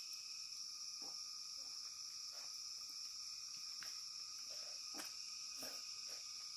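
Steady high-pitched chorus of insects such as crickets, with a few faint short taps and mouth sounds of someone eating by hand.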